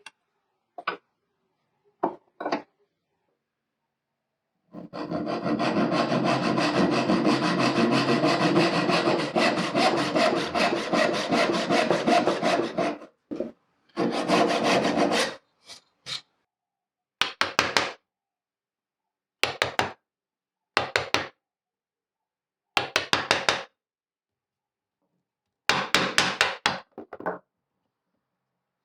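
Hand saw cutting dovetails in a mahogany board with quick back-and-forth strokes. One long run of sawing lasts about eight seconds, then comes a series of short bursts of strokes with pauses between them.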